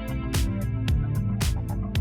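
Background music with a steady beat: electronic drums hitting about twice a second over bass and sustained notes.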